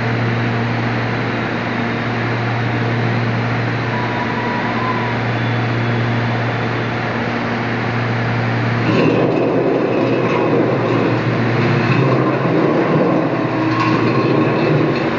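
Dryer machinery running with a steady low hum. About nine seconds in, a rougher, louder rushing noise joins it.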